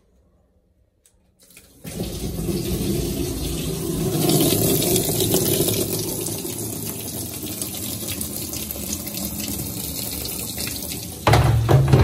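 Tap water rushing through the inlet hose into the wash tub of a Hisense 11 kg twin-tub washing machine, starting about two seconds in and running steadily. A loud low thump near the end.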